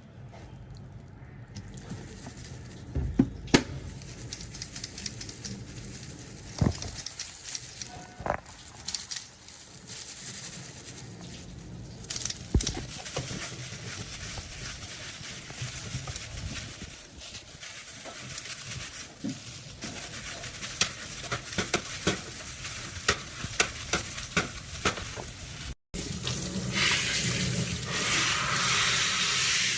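Food frying in a hot pan: a steady sizzle with many sharp crackles and pops of spattering oil that grow denser over time. After a brief break near the end it comes back louder and hissier.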